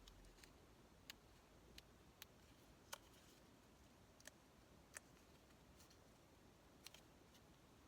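Near silence broken by about seven faint, sharp clicks and taps, spread irregularly, from paper and craft supplies being handled on a desk.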